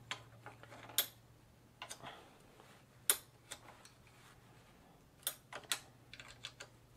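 Scattered sharp clicks and light knocks of bicycle parts and hand tools being handled during handlebar work, the loudest about one and three seconds in and a quick cluster a little after five seconds, over a faint steady hum.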